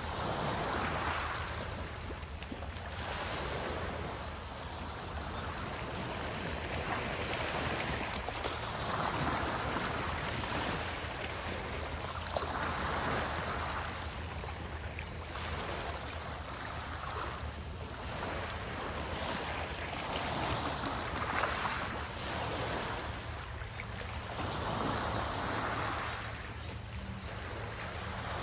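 Small waves washing onto the shore, the surf swelling and fading every few seconds, over a steady low rumble of wind on the microphone.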